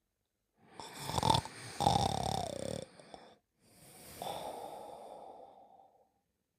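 Cartoon snoring: a loud, rough snore drawn in for about three seconds, starting about half a second in, then a softer, steadier breath out lasting about two and a half seconds.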